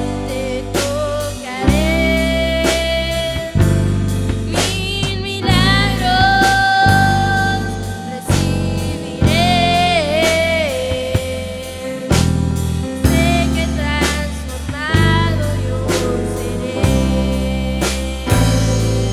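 Small live band playing a worship song: a girl singing the lead over keyboards, electric bass and a drum kit, with regular drum and cymbal hits and bass notes changing every second or two.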